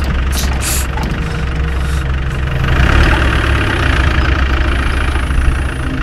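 A vehicle engine running steadily, with a deep, continuous low rumble.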